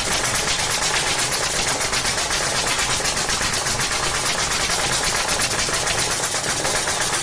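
Power tool driving screws, running with a steady, rapid rattle.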